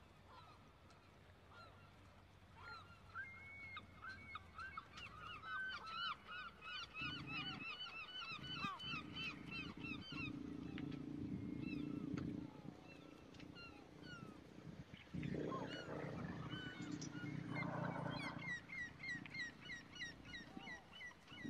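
Birds calling in quick runs of short, repeated chirps, over a low rumble that swells twice for a few seconds each.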